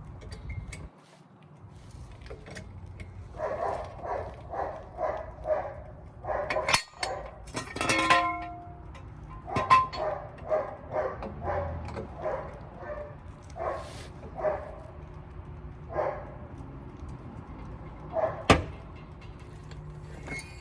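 A dog barking repeatedly, in runs of short barks about twice a second, with one sharp click near the end.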